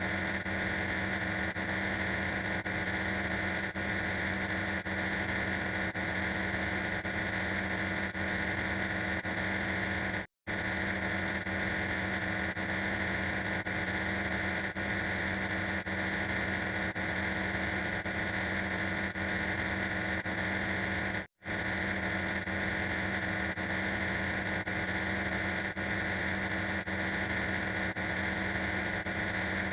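A harsh, dense wall of distorted, layered sound-effect noise at a constant loud level. It drops out for an instant about ten seconds in and again about twenty-one seconds in, then carries on unchanged.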